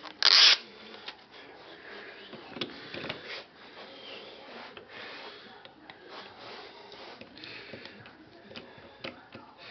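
An Edge Pro sharpener's abrasive stroked along the edge of a ZDP-189 steel knife blade: soft, irregular scraping swishes about once a second. A short, loud scrape or clatter comes just after the start.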